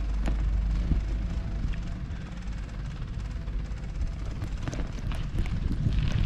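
Steady low rumble of wind and movement noise on the microphone while moving up a stone-paved street, with a few light clicks.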